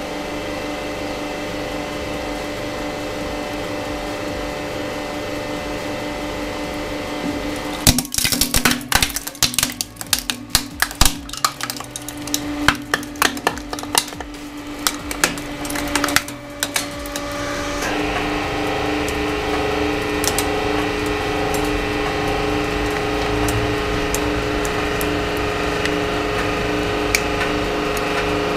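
The hydraulic press's pump runs with a steady hum while the ram bears down on a 12 V sealed lead-acid battery. About eight seconds in, the battery's plastic case gives way in a rapid series of sharp cracks and snaps lasting about nine seconds. After that the pump hum is louder, with a higher tone added, as the press keeps squeezing the flattened battery.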